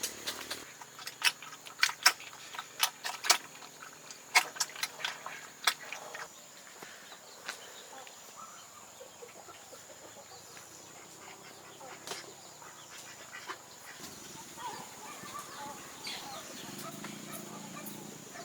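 Chickens clucking, with a run of sharp, irregular knocks during the first six seconds.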